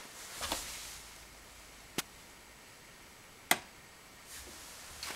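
Sharp single clicks from around an air vent, vaguely like an electrical discharge, coming singly at irregular intervals: one about two seconds in, another a second and a half later, and one more at the very end, with faint soft rushing swells between.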